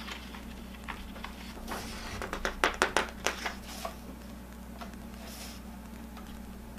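Paper pages of a picture book being turned by hand: a short run of rustles and crisp flicks about two to three and a half seconds in, over a steady low hum.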